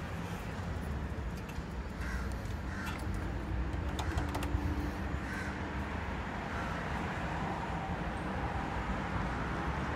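A steady low rumble of outdoor urban background with a few short bird calls, and a couple of sharp clicks about four seconds in.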